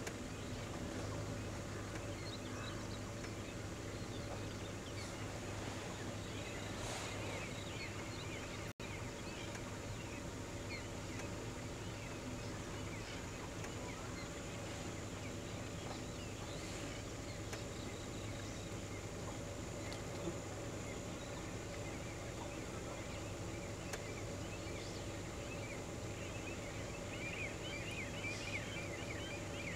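Outdoor ambience: scattered short bird chirps over a steady low hum, dropping out for an instant about nine seconds in. The chirps are thickest near the end.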